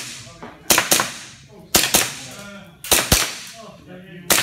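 Handgun shots fired in quick pairs, double taps: three pairs about a second apart, with a fourth pair starting at the very end. Each shot rings off the walls of an indoor range.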